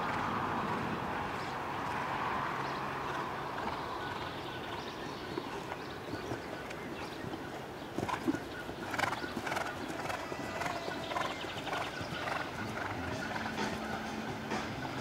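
A show-jumping horse cantering on turf, its hoofbeats heard as a run of knocks. The knocks grow sharper and more frequent from about eight seconds in, around a jump landing.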